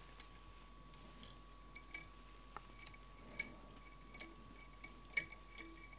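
Faint, scattered small clicks and ticks from fingers handling strands of tinsel and tying thread at a fly-tying vise, over a faint steady high hum.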